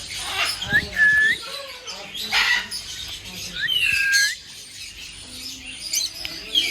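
Caged birds chirping and squawking, with a clear whistled note about a second in and another about four seconds in.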